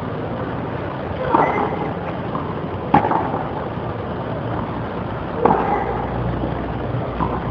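Tennis rally: a tennis ball is hit back and forth with rackets, giving a sharp pop every couple of seconds (three clear hits and a fainter one near the end) over a steady background hiss.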